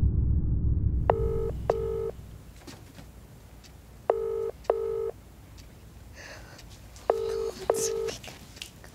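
British telephone ringback tone: a double ring that comes three times, about every three seconds, heard over the phone line while the call rings and is not yet answered. Music fades out in the first second.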